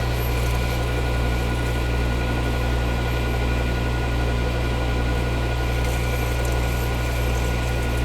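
Lathe running steadily while a boring bar cuts inside a bore: an even low hum with a few constant higher whining tones over a steady hiss.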